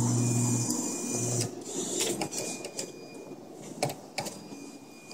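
Claw machine gantry motor whirring as the claw is moved over the prizes, stopping briefly and then cutting out about a second and a half in, followed by a few scattered clicks and knocks of the machine's mechanism.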